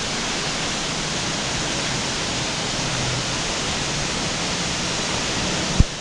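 Horsetail Falls, a tall narrow waterfall, rushing steadily: an even roar of falling water. A single brief low thump sounds just before the end.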